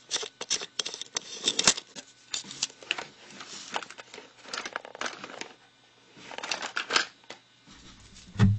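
Handling noise close to the microphone: scattered clicks, taps and rustles as hands fiddle with a clip-on wide-angle lens and the webcam. Guitar music starts right at the end.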